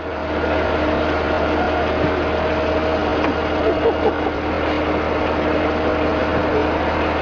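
An engine running steadily at idle, with a dense steady hiss and hum and no change in speed. A few short knocks stand out about four seconds in.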